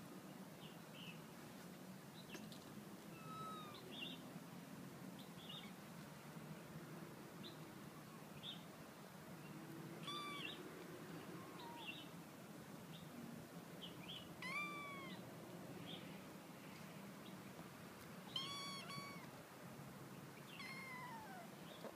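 Kittens mewing: many short, high-pitched mews that fall in pitch, repeated throughout, with louder ones about ten, fourteen and eighteen seconds in.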